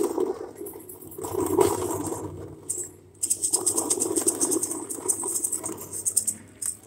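Hand-held painted tube instrument, sold as a thunder-noise maker, tipped and shaken: a dense rattling rush about a second in, then a longer one that stops near the end.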